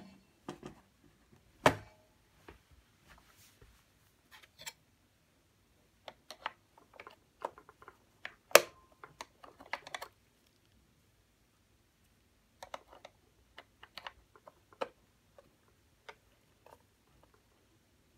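Scattered plastic clicks, taps and light handling noises from a cover panel being fitted back over the mSATA bay on the underside of a Drobo Mini case. Three sharper clicks stand out: at the start, just under two seconds in, and about eight and a half seconds in.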